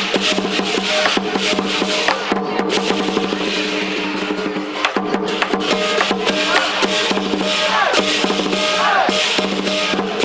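Chinese war drum troupe playing for a dragon and lion dance: fast, dense drumming with steady pitched tones held underneath.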